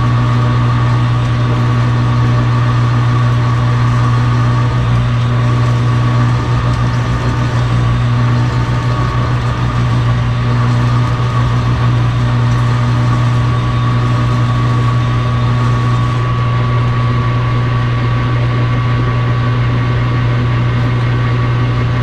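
Metal lathe running steadily: a loud low motor hum with a thin, steady high whine over it.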